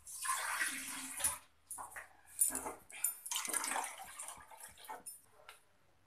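Water poured from a cup into a steel pot on a gas stove, in three pours over about four seconds, to make black tea.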